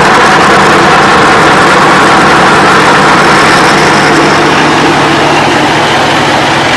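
22 HP Changchai water-cooled diesel engine driving a KL-230A pellet mill, running loud and steady with a constant low hum.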